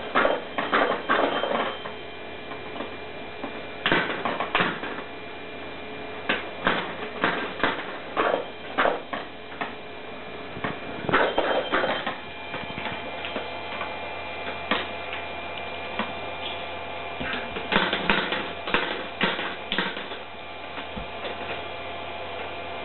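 Small balls clattering down the plastic spiral track of a Kumon Kuru Kuru Chime toy: repeated bursts of quick clicks and rattles, several seconds apart. A steady low hum runs underneath.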